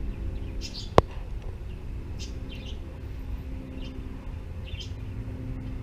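Small birds chirping now and then, in short high calls, with a single sharp click about a second in and a low steady hum underneath.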